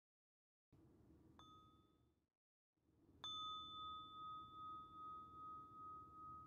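A meditation bowl bell struck twice: a light tap about a second in that dies away quickly, then a full strike about two seconds later that rings on with a slow, wavering hum. The pattern matches a soft waking touch followed by the full sound of the bell before a reading.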